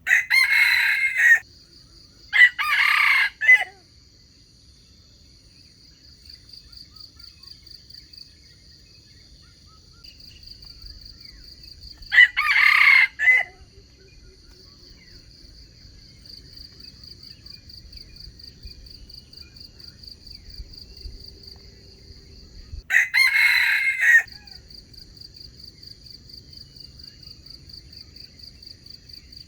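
Wild junglefowl rooster crowing four times: two crows close together at the start, another about twelve seconds in and a last one about twenty-three seconds in. A steady, high, pulsing insect drone runs underneath throughout.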